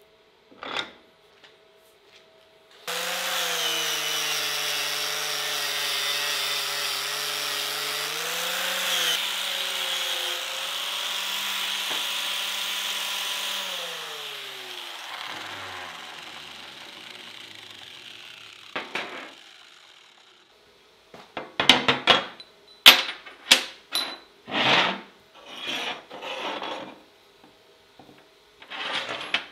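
Angle grinder running steadily at speed, then switched off and winding down with a falling whine. Later comes a string of sharp clinks and knocks as steel pieces are set down on a steel workbench.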